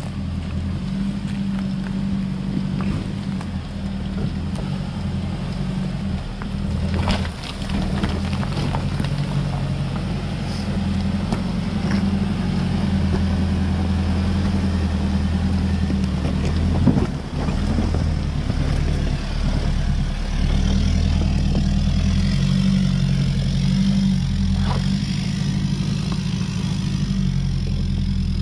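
Land Rover Defender 90's engine running at low revs as it crawls up a rocky track, with a couple of sharp knocks as it works over the rocks.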